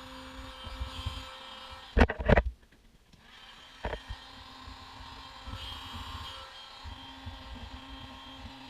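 Heat gun running with a steady motor-and-fan hum while shrinking heat-shrink tubing. Two loud knocks come about two seconds in, the hum drops out briefly, a click follows just before four seconds, and the hum carries on.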